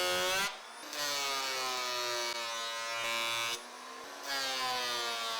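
Portable thickness planer running with its motor hum, in three stretches, the pitch sagging slightly through each.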